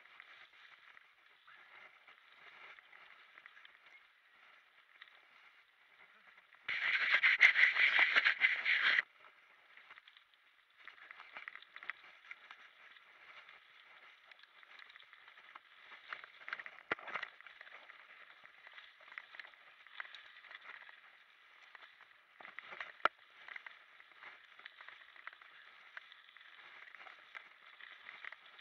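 Mountain bike rolling over a forest singletrack, with muffled tyre noise, rattling and occasional sharp knocks from the bike. A much louder rushing noise lasts about two seconds, about a quarter of the way in.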